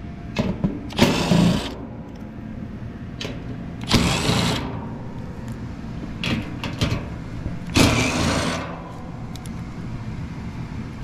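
Milwaukee M12 cordless impact driver backing sheet-metal screws out of an AC condenser's fan grille, in three short runs of under a second each, about 1, 4 and 8 seconds in. A few light clicks fall between the runs.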